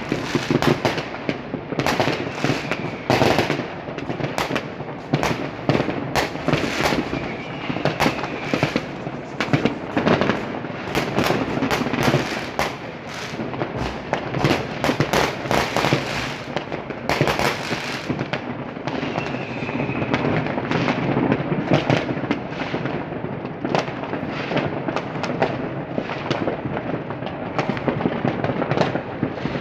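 New Year's fireworks going off in a dense, continuous barrage of bangs and crackles, many overlapping with no real pause.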